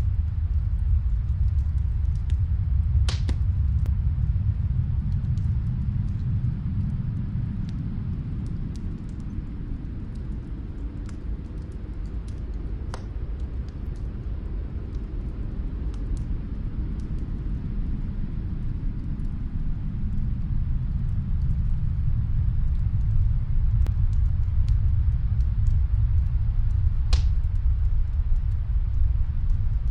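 Snowstorm wind blowing in a low, rumbling rush that eases a little through the middle and builds again near the end, with faint crackles from a fireplace and two louder pops, one a few seconds in and one near the end.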